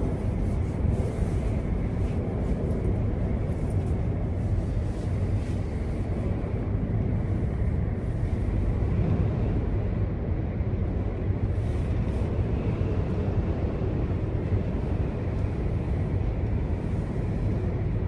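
Steady low rumble with a rushing noise over it, heard from inside a gondola cable car cabin as it travels along the cable.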